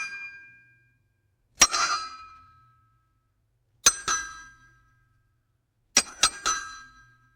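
Metal struck hard, each hit ringing briefly with a few clear metallic tones before dying away. One strike, a second about two seconds later, then three quick strikes in a row near the end.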